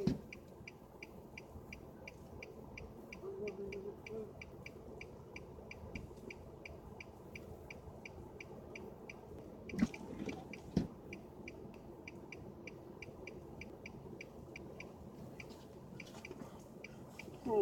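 Rapid, even ticking from the car's signal ticker, about two and a half ticks a second, over a faint low hum. Two dull thumps come about ten and eleven seconds in.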